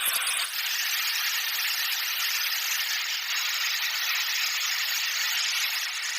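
Steady hissing noise of metal-cutting machine work, with a small change about half a second in.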